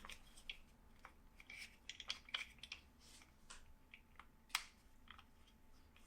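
Faint scattered clicks and light taps, with one sharper click about four and a half seconds in.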